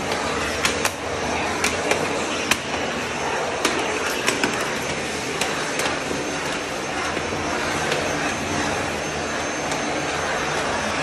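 Vacuum cleaner running steadily, with a few sharp knocks mostly in the first half.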